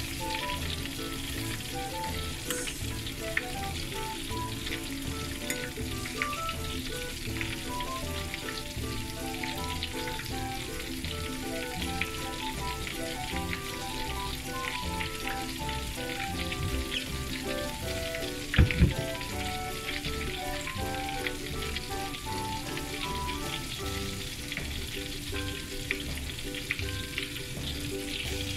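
Cornstarch-coated shrimp deep-frying in hot oil in a stainless steel saucepan: a steady bubbling sizzle full of small crackles. A single sharp knock sounds about two-thirds of the way through.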